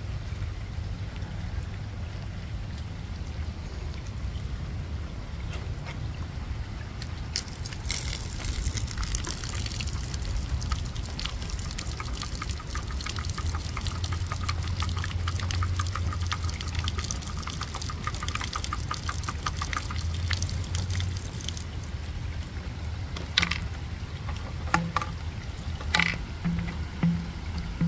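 Rainwater pouring from a green plastic drain-pipe outlet and splashing onto the wet lawn, from about eight seconds in until just past twenty seconds, over a steady low rumble. A few sharp knocks near the end.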